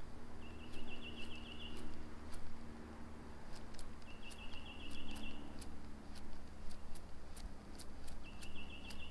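A songbird singing a short, fast, high trill three times, about every four seconds, over scattered faint clicks.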